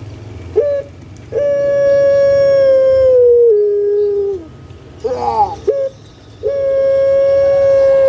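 Puter pelung dove (Barbary dove, Streptopelia risoria) calling. A short note is followed by a long, drawn-out held note that steps down in pitch near its end. About five seconds in comes a quick rolling burst of gliding notes, then a second long held note.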